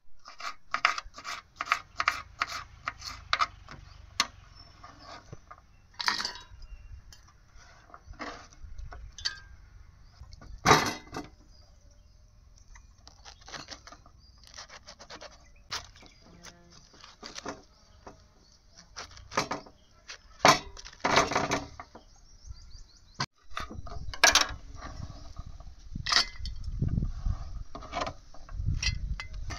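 Food-preparation sounds of utensils: a quick run of knocks for the first few seconds, then scattered knocks, scrapes and clinks. A low rumble comes in underneath about three quarters of the way through.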